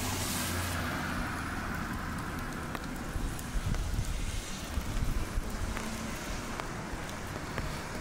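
A car passing on a wet road, its tyre hiss swelling and fading over the first two or three seconds. After that comes an uneven low rumble with a few scattered light ticks.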